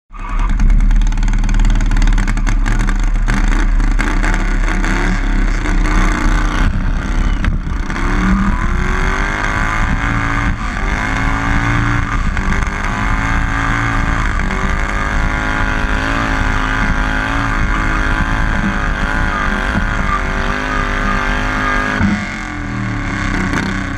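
Modified garden tractor's engine running at high revs through open twin stacks while it pulls a weight sled. The engine note wavers up and down under the load and sags near the end.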